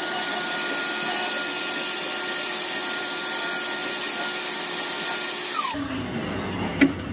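Electric drill running steadily with a twist bit down the dipstick tube, drilling into the broken-off dipstick stuck inside. The motor whine falls away as it winds down about five and a half seconds in, followed by a sharp click.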